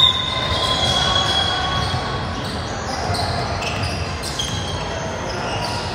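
Basketball being dribbled on a gym court amid steady court noise, with a brief sharp high-pitched tone at the very start.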